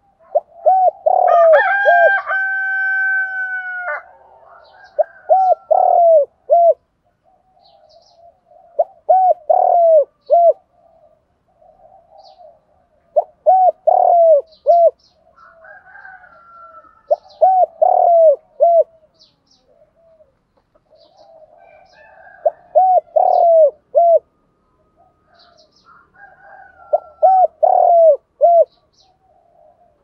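Spotted dove singing its cooing song, a phrase of several short coos repeated about every four seconds. About a second in, a long steady tone with overtones sounds for about three seconds over the coos, and faint high chirps of small birds come and go.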